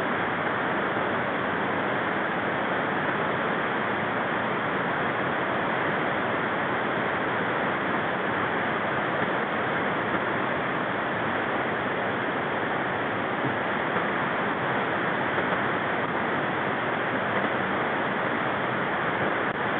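Steady, even rushing noise with no breaks or separate sounds.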